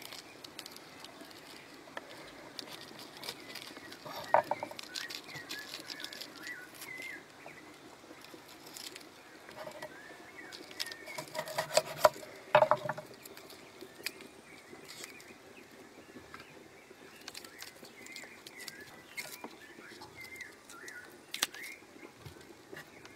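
Kitchen knife slicing through pitahaya flowers and tapping on a wooden cutting board: scattered soft clicks. Birds chirp faintly on and off, with a brief louder call about four seconds in and another about twelve seconds in.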